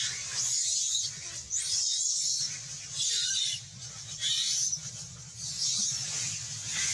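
Young long-tailed macaque screaming in distress. It gives a run of shrill, high-pitched cries, about one a second, over a faint low hum.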